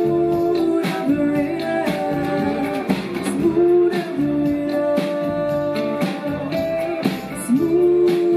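Live band music: a woman singing long held notes, some opening with an upward swoop, over drums and cymbals.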